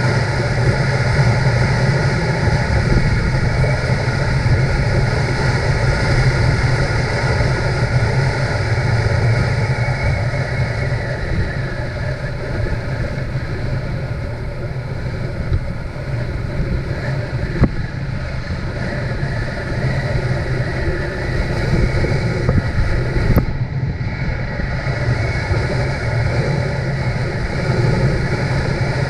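Motorcycle engine running steadily at cruising speed, mixed with wind rushing over the microphone. Two short sharp knocks come past the middle.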